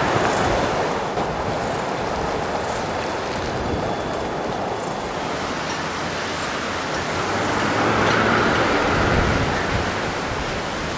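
Steady rushing noise of strong hurricane wind and driven water, with wind buffeting the microphone, swelling a little about eight seconds in.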